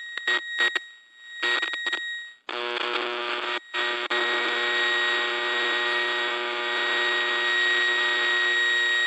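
AM radio static. First come a few short, choppy bursts of noise. From about two and a half seconds in it settles into a steady hiss with a thin, steady whistling tone running through it, broken by one brief cut-out about a second later.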